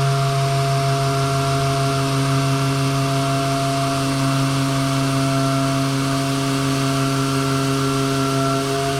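Mirka power sander running steadily with 80-grit paper on a wood veneer surface: a constant motor hum over the hiss of abrasive rubbing on wood.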